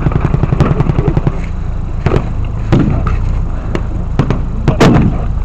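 Blank gunfire and pyrotechnic bangs in a battle reenactment: a rapid low rattle in the first second or so, then several sharp separate shots spread through the rest, over a steady low rumble.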